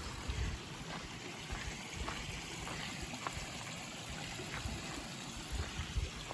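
Creek water flowing and trickling over rocks in a steady wash, with a few short low thumps.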